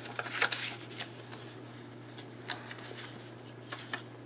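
Paper tags and cardstock rustling and scraping as they are slid out of a journal's paper pocket and handled. The loudest rustle comes about half a second in, with a few shorter ones later.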